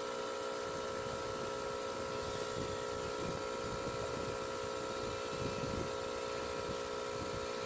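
Electric tattoo machine running with a steady, even buzz as the needle works into skin.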